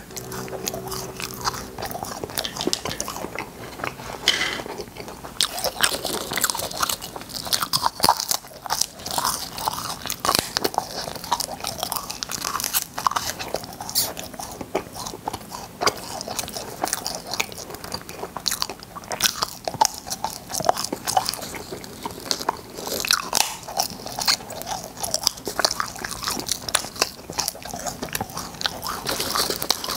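Cola-flavoured popping candy crackling in a mouth: a dense, continuous run of tiny sharp snaps, with crunching and chewing.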